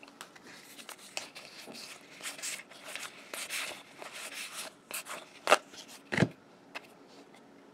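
A stack of Magic: The Gathering trading cards handled and sorted, the cards sliding and rubbing against one another with soft scraping. A couple of sharper clicks come about five and a half and six seconds in.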